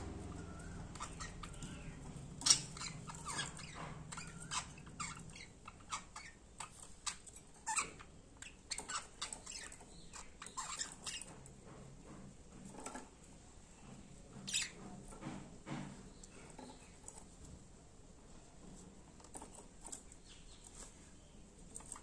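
Pet budgerigars making short, scratchy chirps and clicks in an irregular scatter, busiest in the first half and thinning out toward the end.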